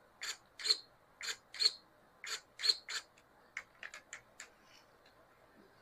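Short, sharp mechanical clicks, mostly in pairs, from an Axial SCX10 III rock crawler's channel switches and servos as the dig and 2-speed channels are tested. A run of fainter, quicker ticks follows about three and a half seconds in.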